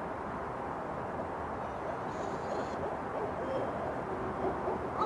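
Barred owl hooting, faint at first and growing louder near the end, over a steady low background rumble.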